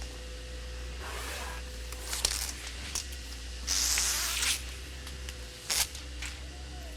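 Velcro (hook-and-loop) strips rasping and tearing in several short bursts as a bed pad is handled and pressed into place. The longest and loudest rip comes about four seconds in.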